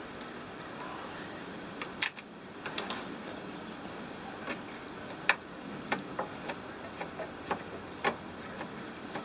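Irregular sharp metallic clicks and knocks of a car door hinge and its bolts being handled and fitted back in place, over a steady background hiss. The clicks start about two seconds in and come in scattered ones and pairs, the loudest a little past the middle.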